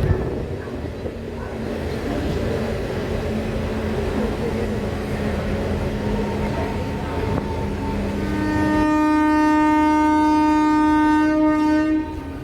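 Passenger train running with steady rail and wheel noise; about nine seconds in, the WAP7 electric locomotive's horn sounds one steady, loud blast of about three seconds, then cuts off.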